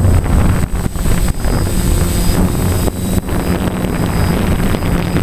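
Quadcopter's electric motors and propellers whirring steadily, heard close up from the craft's onboard camera, with a thin high whine over a low hum. Wind buffets the microphone, and the sound dips briefly a few times.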